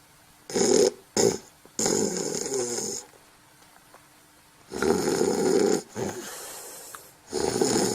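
Snoring: two short snorts, then longer snores on each breath, with a pause of over a second near the middle.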